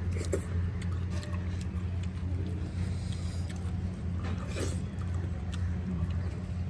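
A steady low rumble, with scattered light clicks and clinks of eating from dishes at a table.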